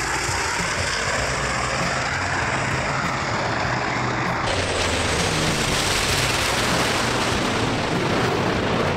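Martin Mars flying boat's four radial piston engines and propellers droning steadily as the aircraft flies past low. About four and a half seconds in the sound changes abruptly to a flyover with other propeller aircraft in formation.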